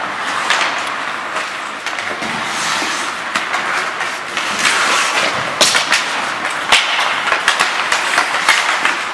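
Ice hockey play on the rink: skates scraping and carving the ice, with sharp clacks of sticks and puck, several of them in the second half.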